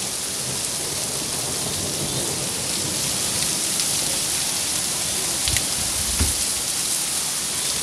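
Torrential rain pouring onto a road and garden, a steady dense hiss, with two short low thumps about five and six seconds in.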